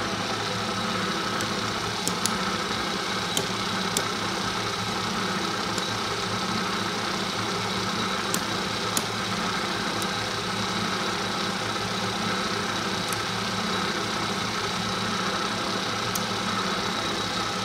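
Bridgeport J-Series vertical milling machine running on its 1 hp three-phase motor, a steady hum with a faint high whine, while the quill power feed drives the quill down at the faster feed rate. A few faint ticks come through at scattered moments.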